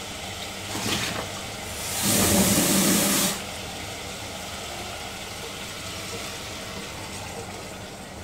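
Water poured into hot frying masala and mutton in an aluminium pressure cooker: a short splash about a second in, then a louder hiss and sizzle as the water hits the hot pan, lasting over a second before it settles.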